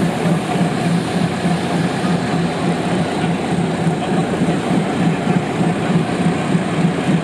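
Diesel train running steadily, with a continuous low engine drone and rail noise.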